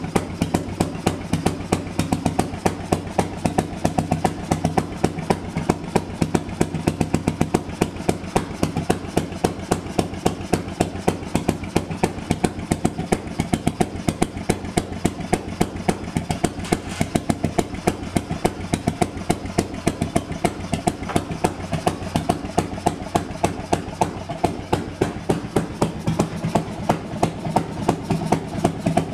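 1949 Fairmont two-cycle single-cylinder railway engine running steadily, firing with an even, rapid beat of sharp exhaust pops.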